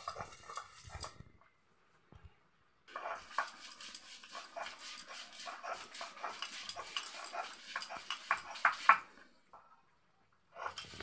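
Handheld grinding stone (nora) rocked back and forth over a flat stone slab (shil), crushing coriander leaves into paste: a run of rough scraping and knocking strokes. Near silence breaks in about a second in and again near the end.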